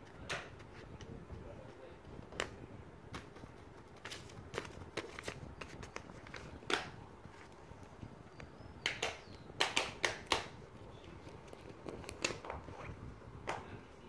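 Plastic fidget toys being handled: irregular sharp clicks, with a quick run of louder clicks about nine to ten seconds in.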